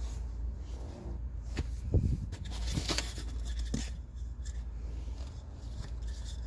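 Handling noises from a car's cabin air filter being swapped: scraping, rubbing and light knocks of the filter and its plastic housing, over a steady low hum.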